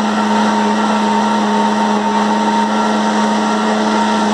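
Electric countertop blender running steadily, blending shrimp, peanuts, cashews and coconut milk into a thick purée: a steady low motor hum under an even whirring noise.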